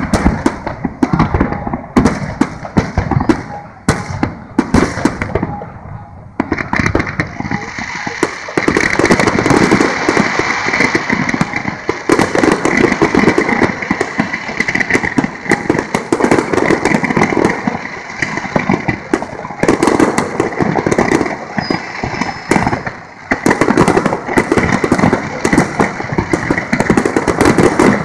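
Large fireworks display: rapid bangs of shells bursting, thinning out briefly about six seconds in, then a dense, almost continuous barrage of bangs and crackle.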